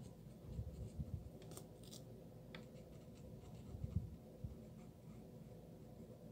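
Faint scratching of an alcohol marker's nib stroking across paper, with a few soft low bumps about a second in and again near four seconds.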